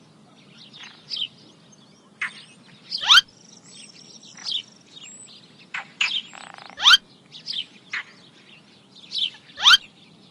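Birds chirping: short, quick sweeping calls repeating about once a second, some with thin higher whistles between them.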